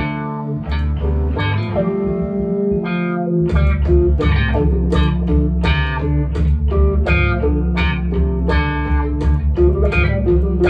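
G&L electric guitar playing a picked melody over a backing track, with a deep bass line coming in about three and a half seconds in.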